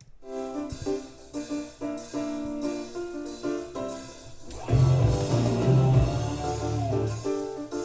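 Recorded music with a melody of separate notes, turning louder with heavy bass a little under five seconds in.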